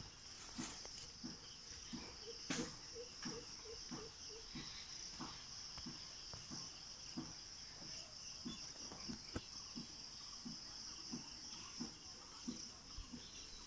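Insects chirring in a faint, steady high drone, with walking footsteps on a wet brick path thudding about every two-thirds of a second.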